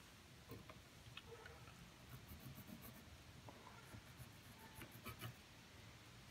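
Faint scratching of a pencil tracing around a light switch on a wooden board, with a few light clicks as the switch is handled.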